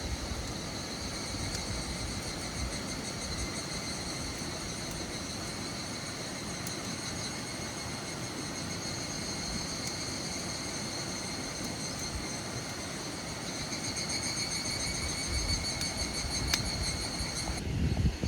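Insects calling in a steady, high-pitched, pulsing chorus over a low rumbling noise, with a thump near the end.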